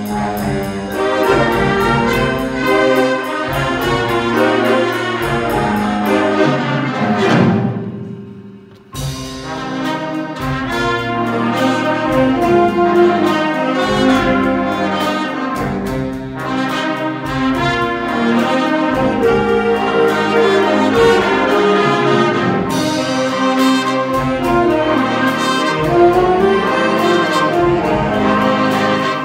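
School jazz band playing, saxophones and brass together. About eight seconds in the music falls away to a brief break, then the full band comes back in suddenly.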